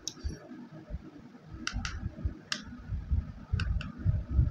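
About six sharp, short clicks, two of them in quick pairs about a second and a half apart, over soft low bumps: a paintbrush and painting gear knocking lightly against the mixing plate and desk while watercolour is worked.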